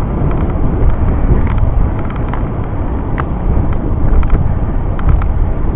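Steady low rumble of wind and road noise on a camera riding on a bicycle climbing a paved road, with a few scattered light clicks and rattles.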